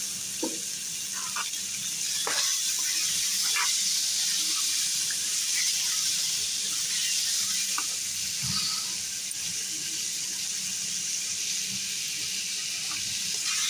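Washed chicken pieces and green peas sizzling in hot oil in a pan, a steady watery hiss, with a metal ladle scraping and knocking against the pan a few times as they are stirred.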